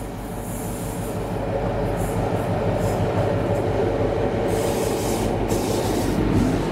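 DC Rail Class 60 diesel locomotive approaching and passing, its eight-cylinder Mirrlees diesel engine running and its wheels running on the rails. It grows louder over the first two seconds, then holds steady, with a steady hum running through it.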